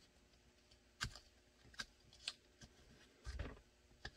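Faint handling sounds of blue painter's tape being pressed down on a cutting mat: a few scattered soft clicks, with a low thump about three and a half seconds in.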